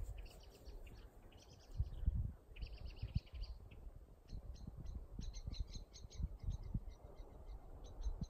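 Small birds calling: quick high chirping trills in short runs over the first few seconds, then a string of separate sharp chirps, with low rumbling thuds underneath.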